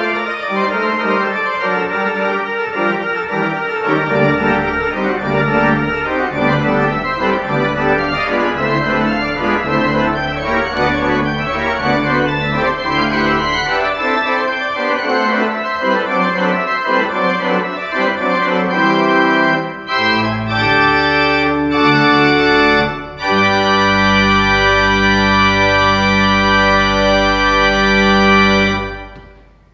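Church pipe organ playing a full, many-voiced passage over a deep pedal bass. It closes on a long, loud held chord that is released near the end, and the echo of the church dies away.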